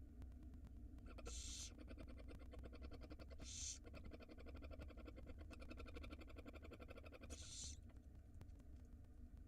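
Barn owl nestlings giving hissing begging calls: three short, harsh hisses, about a second in, near the middle and near the end, over a faint steady hum.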